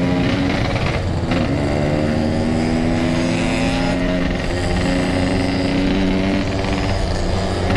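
Yamaha RX-King two-stroke single-cylinder engine with a Packing Power aftermarket exhaust, riding under power. The engine note drops sharply about a second in, like a gear change, then climbs slowly, over a haze of road and wind noise.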